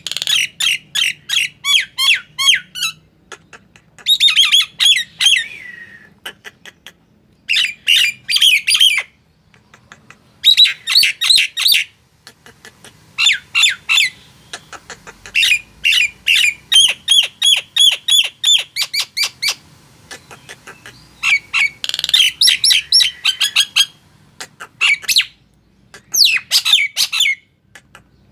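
Nias hill myna singing loud phrases of rapid, sharp repeated notes, each phrase lasting one to four seconds, with short pauses between them.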